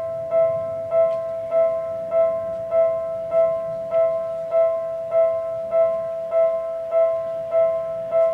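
Japanese railway level-crossing alarm ringing: one electronic bell tone repeated steadily, about every 0.6 s, warning of an approaching train.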